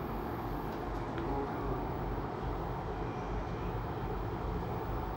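Steady low background noise with no distinct events.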